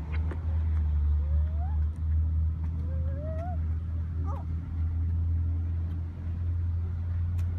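Steady low outdoor rumble, with a few faint rising yelps about a second, three seconds and four seconds in.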